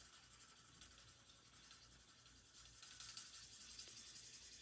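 Faint scratching and rubbing of an alcohol marker's tip on cardstock as a stamped image is coloured in, a little louder from about three seconds in.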